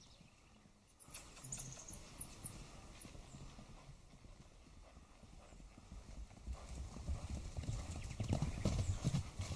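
Thunder rumbling, swelling from about six seconds in to a loud, crackling peak near the end.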